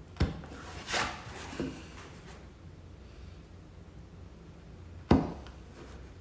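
Chisel working the wood of an old door stile, cutting a bevel into a glue joint: a few short strokes and knocks, the loudest a sharp knock about five seconds in.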